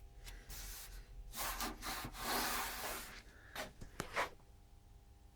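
Irregular rubbing and scraping as the heavy vintage Rohde & Schwarz oscilloscope is handled and shifted on a surface, with a sharp click about four seconds in.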